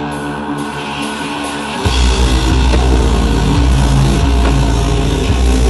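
Live rock band music heard from the crowd: a held, droning chord, then just under two seconds in the full band comes in much louder with heavy bass and drum hits.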